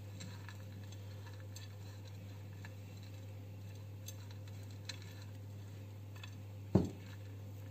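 Faint ticking and light scraping as fingers rub crumbled semolina harcha with onion and oil in a glazed clay dish, with one sharper knock near the end. A low steady hum runs underneath.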